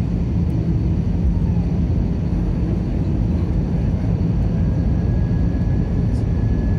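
Airliner cabin noise heard from a window seat: a steady low rumble of engines and airflow with a constant hum. A faint steady high whine joins about four and a half seconds in.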